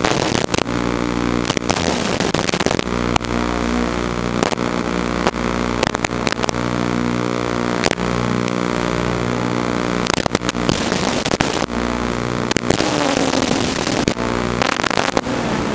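FPV quadcopter's electric motors whining steadily, heard over its analog video link with frequent sharp crackles of static where the signal breaks up. The pitch dips twice near the end as the throttle changes.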